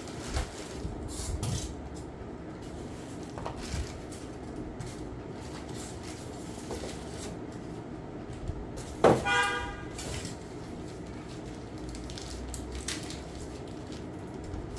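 Scattered small clicks and knocks from handling a new electric kick scooter and its packaging, over a low steady rumble. About nine seconds in comes one loud ringing tone that starts sharply and fades within a second.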